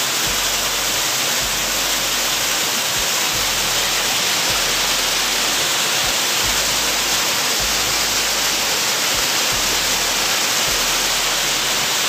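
Small waterfall pouring into a rocky gorge: a steady, even rush of falling water.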